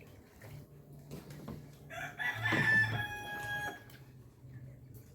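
A rooster crows once, about two seconds in, a single call lasting about a second and a half. A low steady hum runs underneath.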